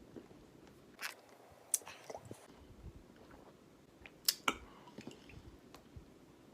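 Close-up mouth sounds of someone eating: chewing with scattered sharp wet clicks and smacks. The loudest are about a second in and a quick pair a little past the four-second mark.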